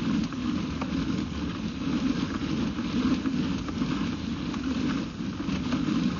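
Water from a running kitchen drain flowing through a house's sewer line, a steady rushing wash with scattered faint clicks.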